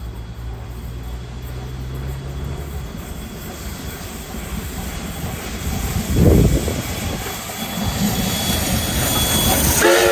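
Steam locomotive 5917 approaching and passing close beneath, its sound growing louder, with a sharp surge about six seconds in and the loudest stretch near the end.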